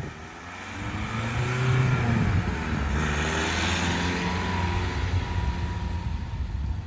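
VW Transporter T5 van driving past, its engine growing louder about a second in and running steadily as it goes by. No whistle stands out over the exhaust, because the exhaust whistle was fitted the wrong way round.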